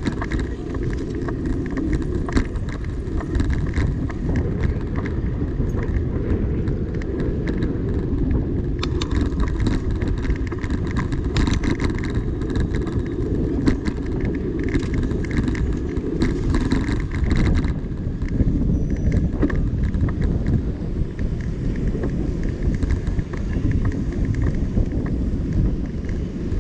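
Steady low rumble of a bicycle ride through city traffic, with frequent small rattles and clicks from the bike over the road surface.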